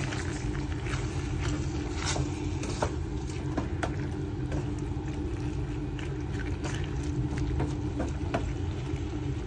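Pork cooking in a pot over a strong flame: a steady low rumble with a faint hum, and scattered pops and ticks of the meat frying.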